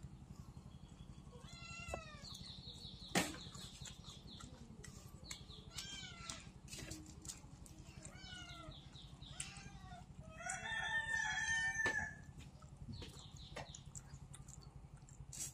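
Animals calling: a string of short pitched calls, with a longer, louder call about ten and a half seconds in. A sharp click just after three seconds in is the loudest single sound, over a steady low hum.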